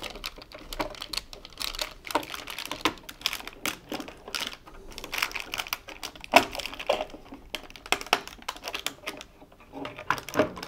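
Rapid, irregular clicking and rattling of hard plastic as a washing machine circuit board is handled and pressed into its plastic control panel housing.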